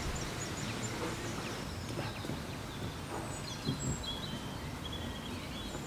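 Quiet outdoor background with scattered high bird chirps, a cluster near the start and more through the middle.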